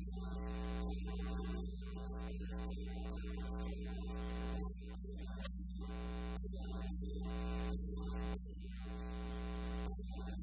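Steady electrical mains hum: a low drone with a buzzing stack of overtones, stepping down in level twice and creeping back up.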